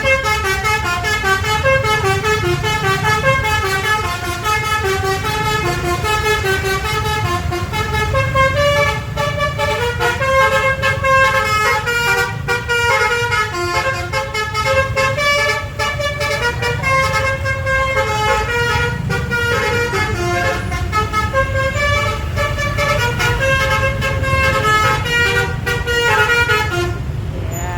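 Basuri telolet bus horn playing a quick melody of short multi-tone notes for most of the time, over the low running of the bus engine. The tune stops shortly before the end.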